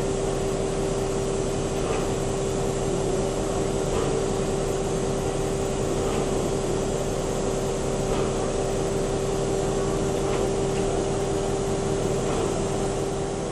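Steam locomotive in steam heard from its cab: a steady hiss and hum with a constant whine, and faint ticks about every two seconds.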